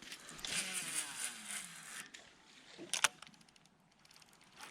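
Baitcasting reel's spool whirring out on a cast, its pitch falling as the spool slows, followed by a sharp click about three seconds in.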